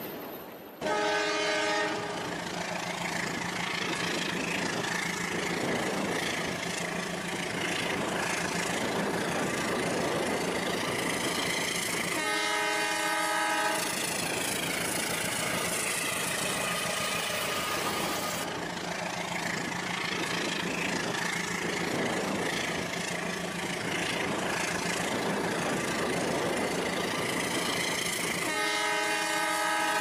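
Train horn sound blown three times, each blast a chord of several tones lasting about a second and a half: about a second in, about twelve seconds in, and near the end. Between the blasts there is a steady hum and hiss from the toy locomotive running through water.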